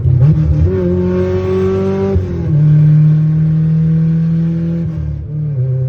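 Honda four-cylinder car engine driving through the gears: the revs climb, hold, fall at a gear change about two seconds in, then hold steady and fall again near the end.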